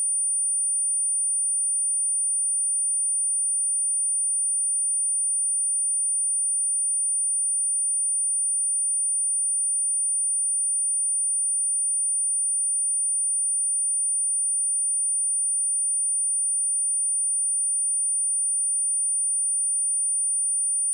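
A steady, high-pitched 9333 Hz pure sine tone, one unbroken pitch at a constant level: a speaker test and speaker-cleaning tone.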